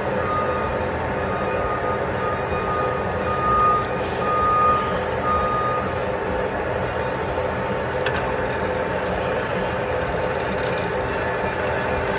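Steady machinery hum with a repeating high-pitched beep, like a backup alarm, through about the first half; a single sharp click about eight seconds in.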